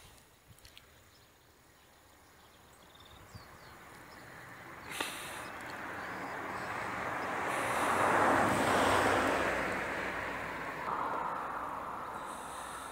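A road vehicle passing by: a broad rushing noise that builds over several seconds, is loudest about eight seconds in, then fades away.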